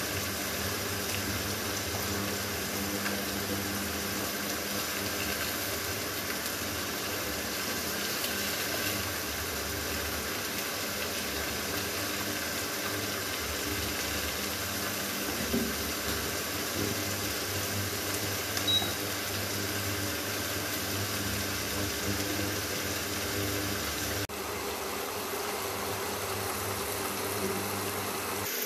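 Paneer cubes frying in hot oil in a non-stick wok, a steady sizzle with a steady hum underneath. A couple of sharp knocks of the wooden spatula against the pan come about midway.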